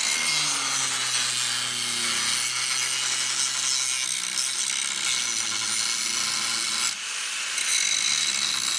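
Angle grinder with an abrasive wheel grinding down the head of a rusted steel frame rivet on a Ford F-150's coil spring tower. It makes a steady harsh rasping hiss, with a high motor whine that drops under load and rises again after a brief lift-off about seven seconds in.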